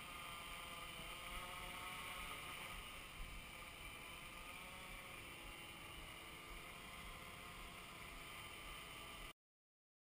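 A hexacopter's brushless motors and propellers whirring steadily in flight, several tones drifting slightly in pitch over a hiss, then cutting off suddenly near the end.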